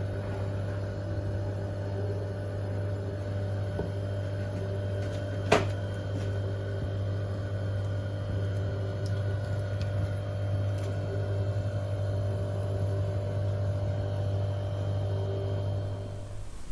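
Steady low electrical hum with a fainter higher tone over it, and one sharp click about five and a half seconds in. The hum cuts off near the end.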